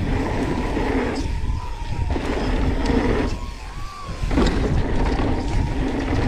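Mountain bike ridden fast down a dirt jump line: wind rumble on the microphone with tyre and ride noise. It drops away twice for about half a second.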